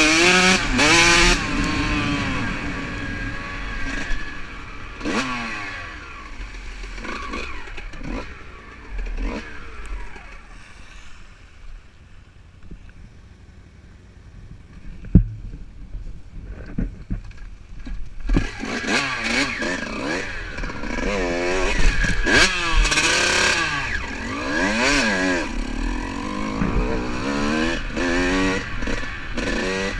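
Dirt bike engine revving up and down as it is ridden along a rough trail, the pitch climbing and dropping through the throttle and gear changes. The engine backs off for several seconds near the middle, with one sharp knock, then revs hard again.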